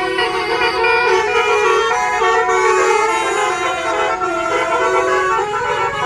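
Bus 'basuri' musical air horn (telolet horn) playing a tune: several horn tones sound together and change pitch every fraction of a second.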